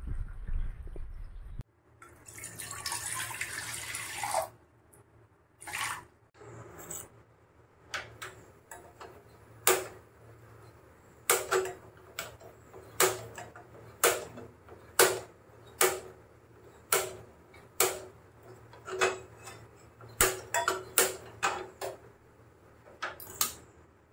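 Water running for a couple of seconds, then a string of sharp knocks or clinks, roughly one a second, which are the loudest sounds.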